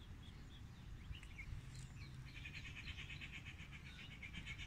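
Faint, fast chirping trill of a small animal, starting about halfway through, with a few scattered chirps before it.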